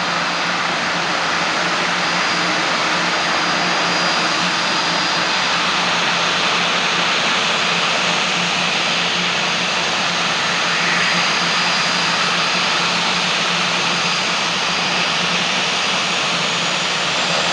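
Beechcraft King Air 350's twin Pratt & Whitney PT6A-60A turboprop engines running steadily, a high whine over a low hum.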